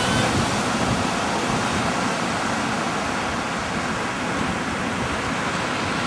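Ocean surf breaking on the shore, mixed with wind blowing across the microphone: a steady, even hiss with no distinct events.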